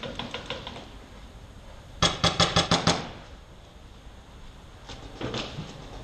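A paintball marker firing a rapid string of about seven shots in a second, with fainter scattered pops of other fire before and after.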